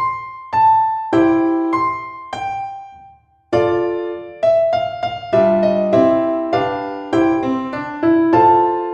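Background piano music: notes and chords are struck and left to ring and fade, with a brief pause a little after three seconds in.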